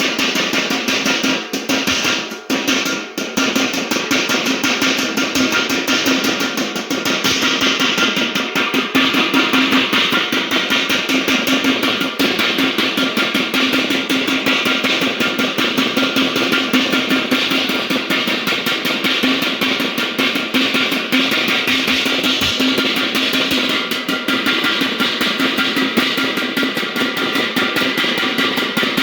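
Background music with drums and plucked guitar, a steady beat throughout.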